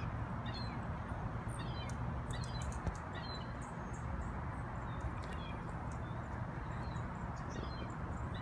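Short, high-pitched bird calls in small falling clusters, repeating every second or so, from a bald eagle and the smaller birds mobbing it overhead, over a steady low background rumble.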